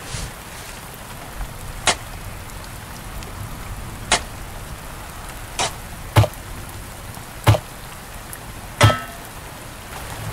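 Six sharp, irregularly spaced strikes over a steady hiss, the last three loudest, as someone digs at the soil in undergrowth.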